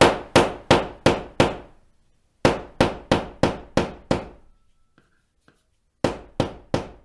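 Butt of a Hyde putty knife tapping a lag bolt head in drywall: sharp ringing knocks about three a second, in three runs with short pauses between, driving the bolt just below the wall surface so it can be filled over.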